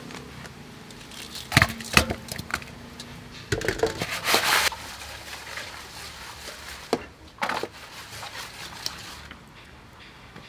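An aluminium basin of raw seasoned salmon fins being handled and shaken to mix in the seasoning: a few sharp knocks of the metal basin and a short scraping rush of the fish pieces sliding inside it around the middle.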